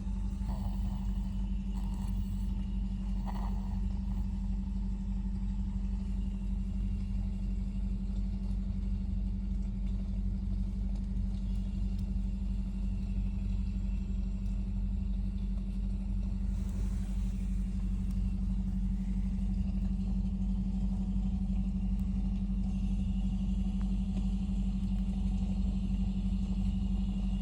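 Steady low drone inside a moving car's cabin: engine and road noise running evenly.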